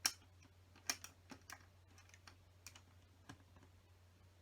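Hard plastic LEGO pieces clicking and tapping as they are handled and pressed together: a handful of sharp, irregular clicks, the loudest right at the start.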